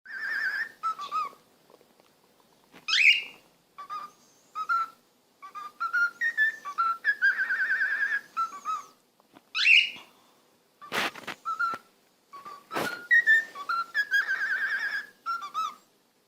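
Parrot whistling a wavering tune in short repeated phrases, broken by two quick rising whistles. Two sharp clicks come about two-thirds of the way through.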